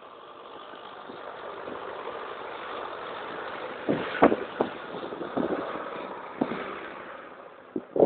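Tractor engines driving past one after another. The sound builds to a peak around the middle and then fades, with a few sharp knocks about four seconds in.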